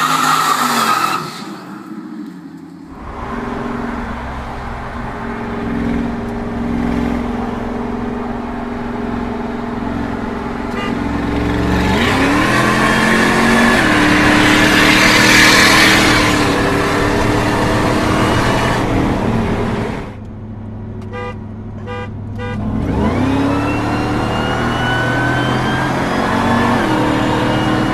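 1999 Ford SVT F-150 Lightning's supercharged 5.4-litre V8 running and revving across several short clips: the engine note climbs in pitch around the middle and again near the end, with a thin high whine rising above it.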